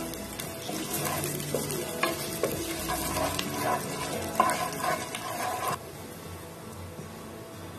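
Chopped pieces, a bay leaf and whole spices sizzling in hot oil in a nonstick pot, with a spatula stirring and scraping through them in short clicks. The sizzling and stirring drop quieter about six seconds in.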